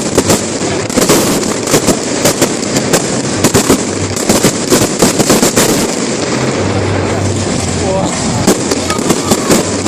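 Fireworks display going off in a rapid, unbroken run of bangs and crackles, several a second, with crowd voices underneath.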